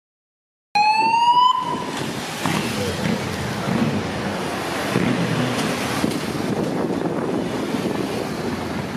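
A siren's rising wail that breaks off suddenly after under a second, then the steady noise of passing motorcade traffic and wind along the street.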